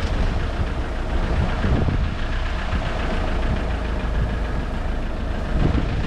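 Land Rover 4x4 engine running as it drives a rough off-road trail, heard under a steady, noisy rumble.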